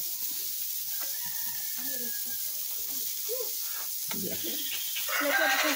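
Meat sizzling on a grill: a steady frying hiss, with faint voices in the background. The sizzle grows louder and fuller about five seconds in.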